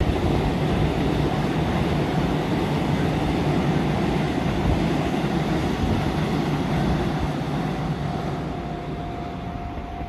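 Electric multiple-unit commuter train passing at speed, its wheels running over the rails in a steady rumble that fades as the train moves away. A faint steady tone comes in near the end.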